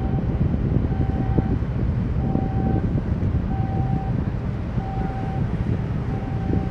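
Steady low rumble of a boat's engine and wind on the microphone, with a short electronic beep repeating about every 1.3 seconds.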